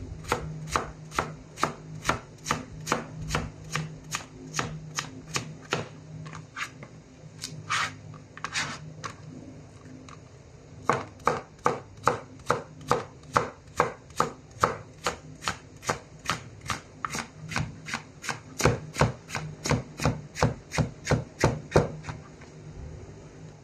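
A chef's knife chopping onion on a cutting board, with quick, evenly spaced strokes about three a second. The chopping pauses briefly near the middle, then resumes and stops shortly before the end.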